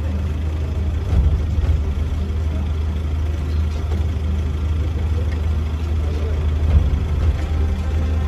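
A steady low rumbling drone, with a few brief louder thumps about a second in and again near the end.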